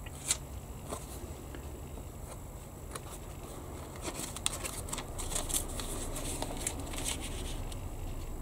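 Paper rustling and crinkling as a decal sheet and its thin protective tissue backing are lifted, bent and flipped by hand. The crinkles are scattered at first and thicken about halfway through, over a faint steady hum.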